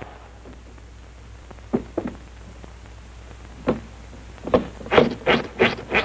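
Clothes being scrubbed on a washboard in a wooden washtub: a few scattered knocks, then quick rhythmic rubbing strokes from about four and a half seconds in, over a faint steady hiss and low hum.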